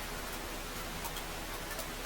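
Wood fire burning in a fireplace: a steady hiss with a few faint crackles.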